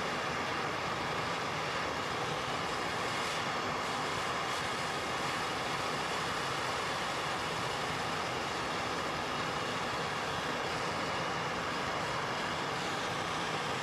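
Soldering torch flame burning with a steady hiss while a brass fitting on copper pipe is heated and wire solder is fed into the joint.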